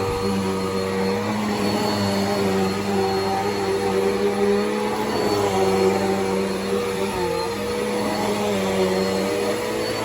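Bissell PowerForce Helix upright vacuum cleaner running steadily, its motor whine over a rush of air, the pitch wavering slightly and dipping briefly about seven seconds in.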